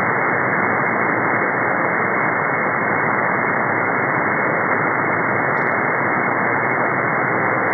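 Steady shortwave static from a software-defined receiver tuned in upper sideband to 4625 kHz, the buzzer's frequency. It is an even hiss cut off sharply above about 2 kHz by the receiver's filter, and no buzz or tone stands out from the noise.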